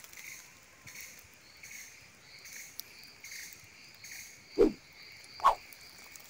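Forest insects chirping in a faint, evenly repeating pulse, with two short loud sounds about a second apart near the end.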